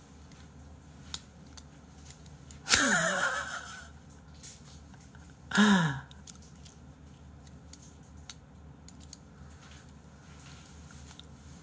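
A man laughing breathily without words, in two bursts: a longer one about three seconds in and a shorter one just before the middle, each falling in pitch. Faint small clicks in between.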